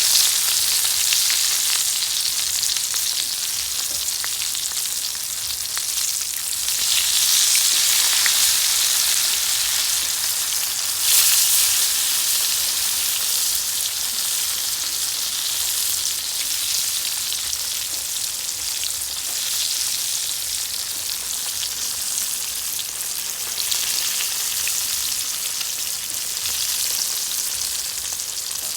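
Coated stone crabs frying in hot oil: a steady, hissing sizzle with fine crackle, swelling louder about 7 seconds in and again briefly about 11 seconds in.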